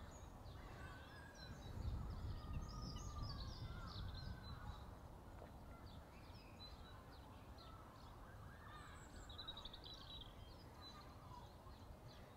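Small birds chirping and warbling on and off, over a low rumble of wind on the microphone that is strongest about two seconds in.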